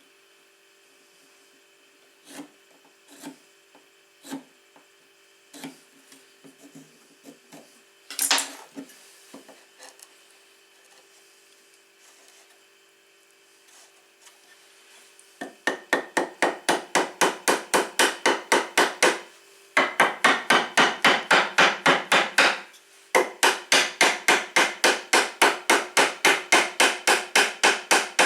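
Workshop tool work on wood: a few scattered knocks, the loudest about eight seconds in, then rapid, even strikes on wood at about five a second. The strikes come in three runs with short breaks between them.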